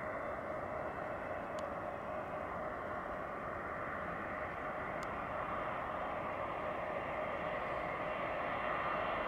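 Boeing 747-400F's four jet engines on final approach: a steady rushing whine with a few held tones, growing slowly louder as the aircraft closes in.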